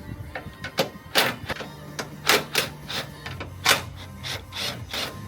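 Workshop clatter: a run of irregular sharp clicks and knocks, with a low steady hum from about a second and a half in until near the end.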